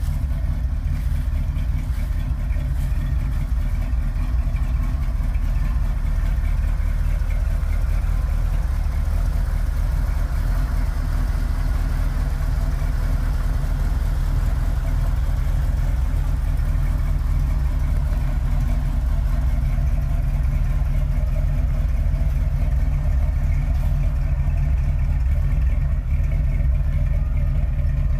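A 1967 Kaiser Jeep M715 military truck's engine idling steadily with a low, even rumble.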